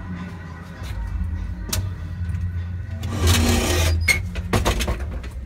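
Telephone booth door being worked as someone steps in: a rushing scrape of about a second, then several sharp clacks and knocks, over a steady low hum.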